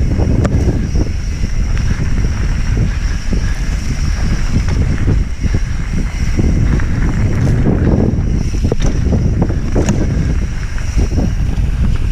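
Wind buffeting the microphone on a mountain bike riding fast down a dirt singletrack, with the bike's rattle and frequent short knocks as the tyres run over rocks and ruts.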